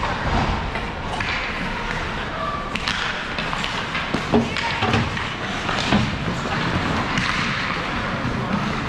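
Ice hockey play in a rink: a string of sharp knocks and clacks of sticks and puck, the loudest about four and a half and six seconds in, over a steady din of rink noise and voices.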